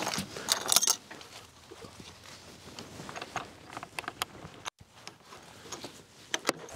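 Corner latches on a camper's pop-top roof being loosened by hand, releasing the roof to rise on its gas struts: a burst of metallic clicking and rattling about half a second in, then scattered lighter clicks and a couple of sharp clicks near the end.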